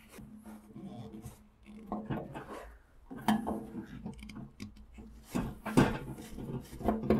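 Flat-blade screwdriver grinding and scraping in rusty screws as it turns them out of a welder's sheet-steel case, with irregular scrapes and a few sharper metallic clicks.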